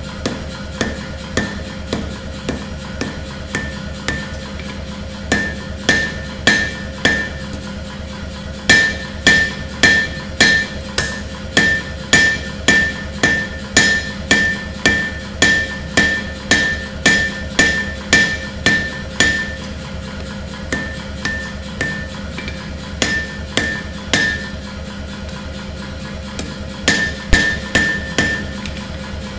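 Hammer forging a red-hot Damascus steel knife blade on an anvil: sharp strikes about two a second, each with a bright ring, in several runs with short pauses. A steady hum runs underneath.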